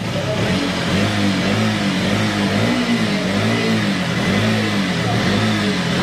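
KTM RC 200's single-cylinder engine being revved in quick throttle blips, about two a second, its pitch rising and falling with each blip.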